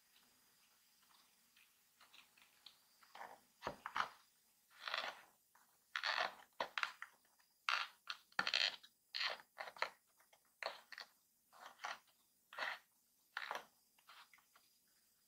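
Paper karakuri toy's cardboard mechanism scraping and crunching as it is turned by hand, driving the paper train around its track. A string of short, irregular papery scrapes begins about three seconds in and comes every half second or so, loudest in the middle.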